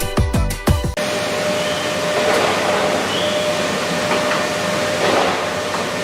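Electronic background music with a steady beat that cuts off about a second in. Then industrial wood-processing machinery runs steadily, with an even noise and one constant whining tone.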